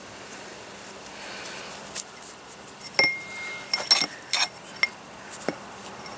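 Wind chime pipes clinking against each other several times as the cord they hang on is knotted. The clinks are bunched about four seconds in, and one strike about three seconds in rings on briefly with a clear tone.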